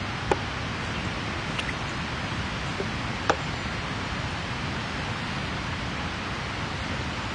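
Wood campfire burning: a steady hiss with a few sharp pops, the two loudest about a third of a second in and a little after three seconds in.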